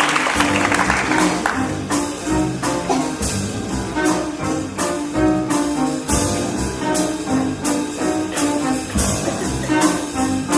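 Live pit band of reeds, strings, bass and drums playing a jazzy up-tempo instrumental with a steady drum beat. Applause fades out in the first second or so.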